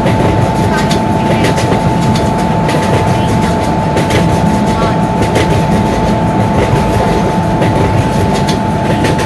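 Rajdhani Express passenger train running: a steady rumble with frequent clicks and rattles, and a steady whine over it.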